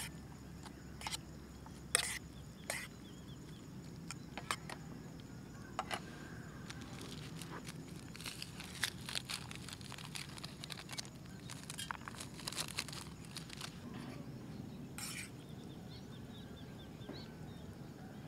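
Metal folding fork clinking and scraping against an aluminium camping pot as instant noodles are stirred, a sharp click every second or so at first. From about seven to thirteen seconds in comes a dense run of fine crackling and rustling as seasoning is sprinkled over the noodles, all over a faint low hum.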